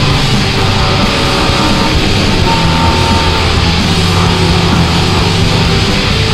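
Loud rock music with distorted electric guitar and a steady beat.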